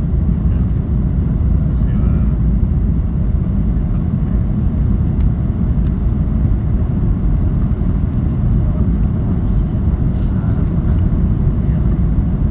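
Steady low rumble of an airliner's engines and airflow on its landing approach, even throughout, with faint voices underneath.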